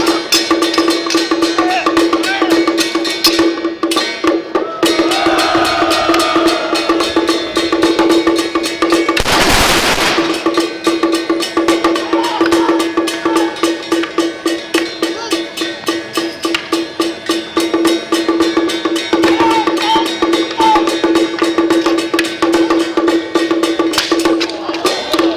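Song Jiang Zhen drum-and-gong accompaniment: fast, continuous drum and cymbal beating over a steady ringing metal tone, with one loud crash about ten seconds in.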